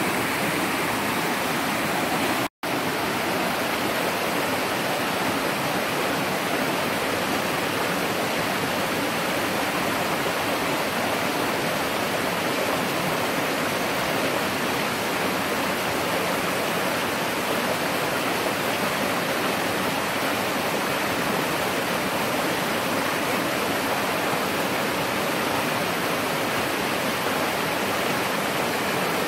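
Mountain stream rushing over boulders and a small waterfall pouring into a pool: a loud, steady rush of water. It cuts out for an instant about two and a half seconds in.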